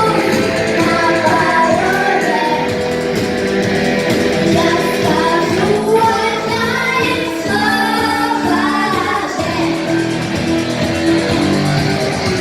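Rock song performed live: voices singing the melody over guitar and bass.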